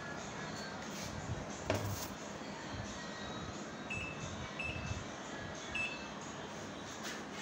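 Control-panel button beeps of a Dawlance DWT 255 top-load washing machine: three short high beeps as the buttons are pressed, with a single knock a couple of seconds earlier.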